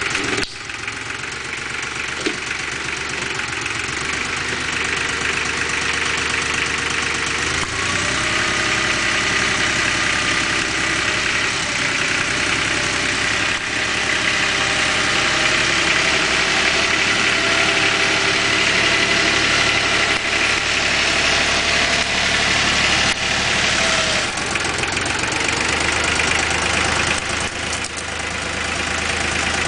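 The diesel engine of a Lenar FS 254 II compact tractor runs steadily while the front loader is worked. Its note shifts about eight seconds in and again near the end.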